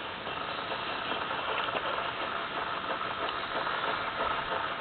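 Atlas model steam engine running steadily, a fast, even mechanical clatter.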